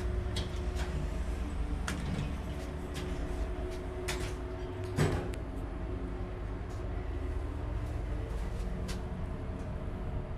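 MacGregor (KONE) service elevator car on a ferry travelling: a steady low hum of the drive and ship machinery with scattered small clicks and rattles from the car, and one louder knock about five seconds in.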